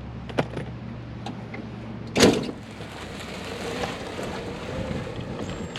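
A few light clicks, then one loud knock about two seconds in as a wooden anchor-bolt support is worked into place among rebar and tie wire. A steady low hum stops at the knock.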